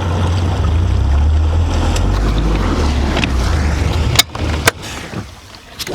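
Boat motor running at low speed, a steady low hum mixed with water and wind noise. About four seconds in come two sharp knocks, and after them the motor hum drops away.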